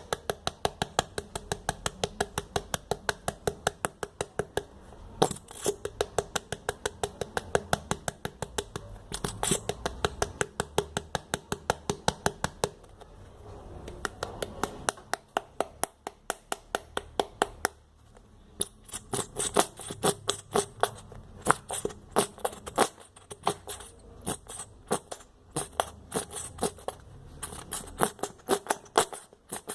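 A utensil stirring glue and fabric softener for slime in a small pot, tapping against its sides in quick, even clicks about five a second, with short pauses about halfway through.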